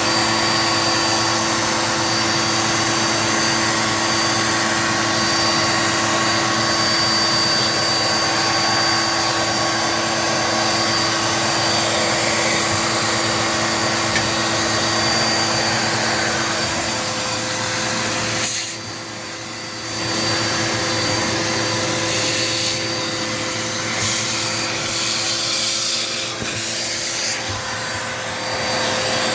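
Dirt Devil Multi-Surface vacuum cleaner running steadily with a whining hum. A little past halfway its pitch shifts slightly. At about two-thirds of the way the sound dips briefly for about a second, then comes back.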